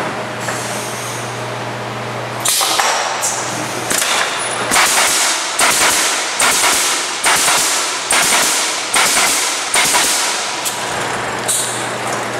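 Pneumatic Bostitch coil nailers on an automated pallet nailing machine firing in quick succession, about a dozen shots, each a sharp crack that trails off in a short hiss, over a steady machine hum. The shots start about two and a half seconds in and stop shortly before the end.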